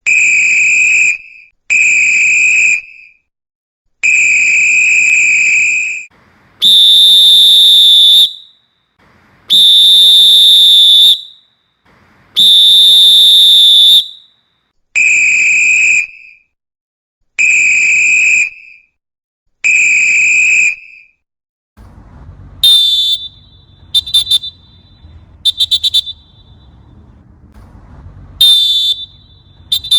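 Referee's whistle sounds, a series of separate blasts: six short blasts at one pitch, then three longer, higher-pitched blasts, then, from about 22 seconds in, short trilling blasts over a low background rumble.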